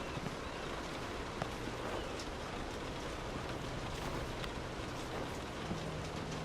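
Steady rain falling on a car's roof and windows, heard from inside the cabin: an even wash of patter with scattered sharper drop ticks.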